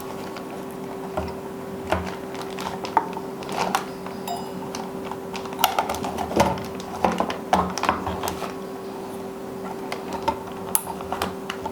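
Irregular plastic clicks and taps as a CPU cooler's four push-pin locks are pressed down into the motherboard holes, over a steady faint hum.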